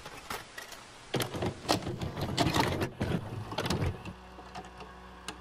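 Mechanical-sounding intro sound effect: a rattling run of clicks and knocks over a hiss, giving way to a steady low hum about four seconds in.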